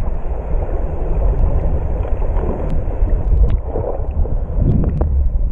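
Muffled underwater rumble of moving water, recorded through a waterproof camera housing, with a few faint scattered clicks.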